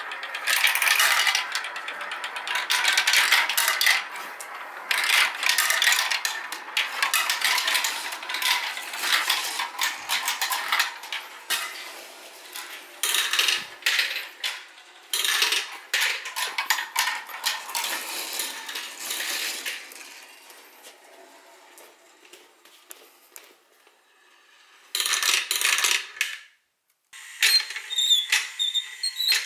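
Several marbles rolling and clattering through a plastic marble-run track, a dense rattle of small clicks. It thins out and fades about two-thirds of the way in, then a short burst of clatter, a brief cut, and more clicking near the end.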